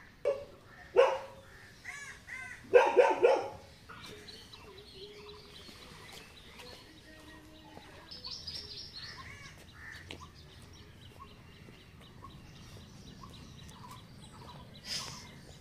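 A dog barking, a couple of single barks in the first second or so, then a quick run of barks about three seconds in, with small birds chirping later on.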